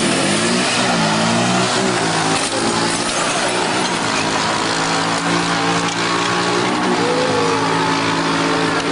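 Loud motorcycle engine revving up and down at a drag strip starting line, then holding a steady note, with a short rise near the end.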